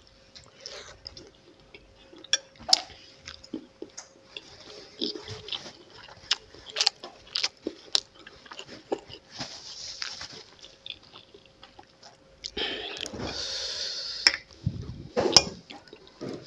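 Close-up chewing of spicy instant noodles, with wet mouth smacks and sharp clicks, and a long sucking slurp about thirteen seconds in.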